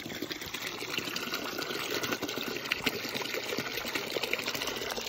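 Water running from a frost-free yard hydrant into a plastic five-gallon bucket that is filling up, in a steady stream that grows slightly louder.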